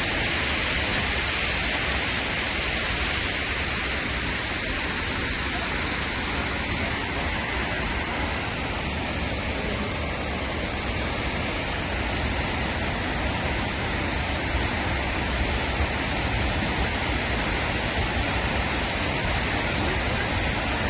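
Steady rush of falling water from Multnomah Falls, an even, unbroken noise.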